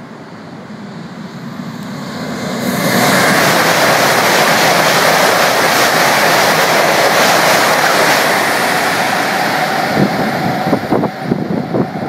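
A Velaro high-speed train passing through the station at speed. Its rushing noise of wheels on rail and air grows over a couple of seconds and holds loud and steady. Near the end it breaks into a run of sharp, gusty thumps of wind buffeting the microphone in the train's wake.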